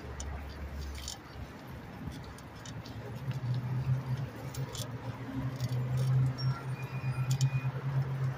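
Bicycle rattling and clicking as it rides over a sidewalk, with road traffic and a steady low hum that gets louder about three seconds in.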